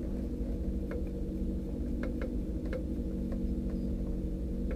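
Race car engine idling steadily while the car sits stopped, heard from inside the cockpit, with a few faint ticks.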